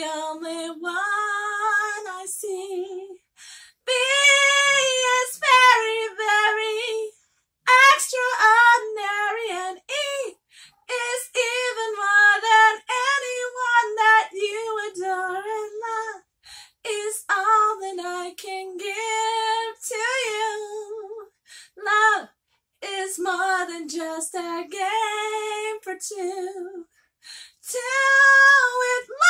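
A woman singing unaccompanied, in short phrases separated by brief silent pauses; no instruments are heard.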